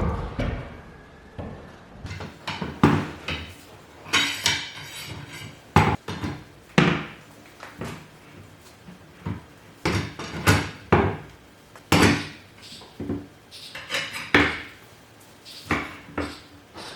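Metal clamps clanking and knocking against wood as they are handled and hung on a wooden rack: a dozen or so irregular knocks and clinks, some ringing briefly.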